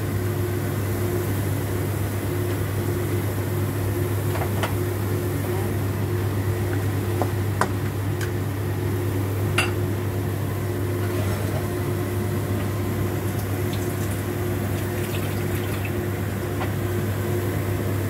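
Snow peas, carrots and bell pepper cooking in a little liquid in a pan, with a few faint pops and clicks, the sharpest about ten seconds in, over a steady low hum.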